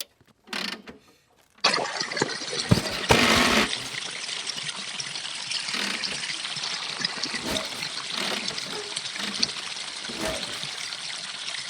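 Water trickling and pouring steadily, starting after a brief quiet moment, with a louder splash about three seconds in.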